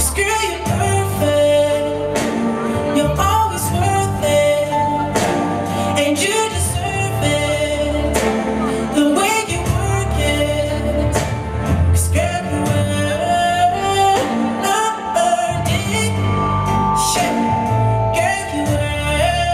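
Pop song with a sung melody and a steady beat, played as backing music for a stage dance.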